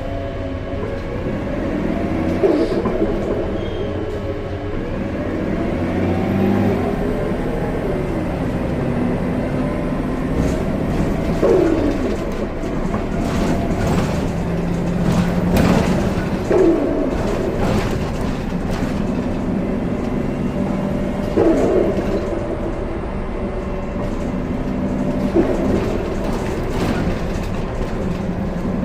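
Gillig Low Floor CNG transit bus running, its engine and drivetrain drone rising and falling in pitch as it speeds up and slows, with frequent rattles and clicks and short squeals every few seconds.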